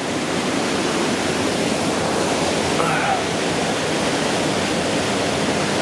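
Waterfall in a rock canyon: a steady, loud rush of falling water.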